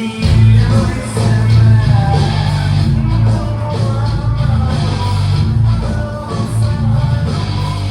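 Live rock band playing, with heavy bass and a singing voice over it.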